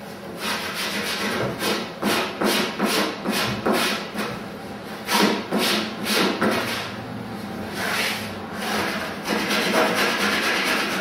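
Surform tool rasping wood off the tip of a wooden kayak paddle blank in quick push strokes, about two to three a second, with a few longer strokes near the end.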